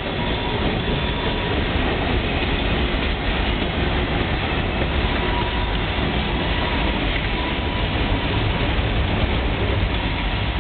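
Union Pacific coal train's loaded-type hopper cars rolling steadily past at trackside: a continuous rumble of steel wheels on rail, with a few faint high ringing tones above it.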